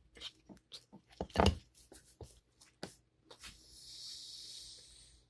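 Close-up chewing and mouth noises from a person eating pizza: scattered small clicks and smacks, with one louder thump about a second and a half in. A steady hiss runs for nearly two seconds near the end.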